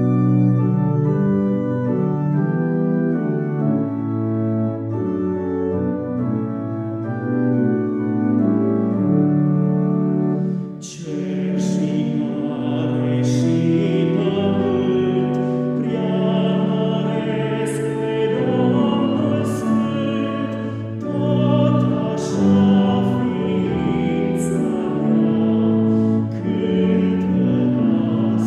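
Church organ playing a hymn introduction in sustained chords. About eleven seconds in, a solo male voice begins singing the hymn in Romanian over the organ accompaniment.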